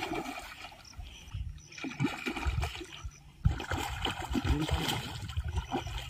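A hooked fish splashing and thrashing at the surface close to the bank as it is played on a rod, water splashing again and again.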